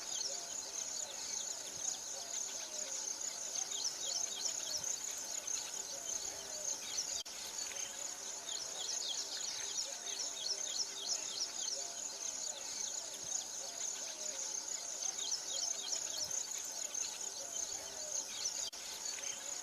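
Outdoor chorus of insects chirping densely and continuously, many short high chirps overlapping without a break.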